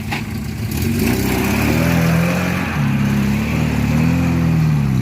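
Suzuki Jimny 4x4's engine revving under load off-road, its pitch rising and falling as the throttle is worked. It gets louder about a second in.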